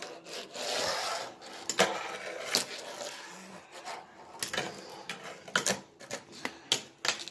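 Fingerboard being ridden on a countertop and wooden ledge: a short rolling scrape about a second in, then a run of sharp wooden clicks and clacks as the deck is popped, lands and knocks against the edge.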